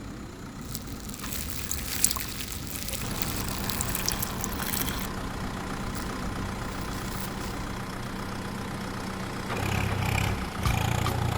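A motor running steadily, with rattling and scattered clicks, getting louder near the end.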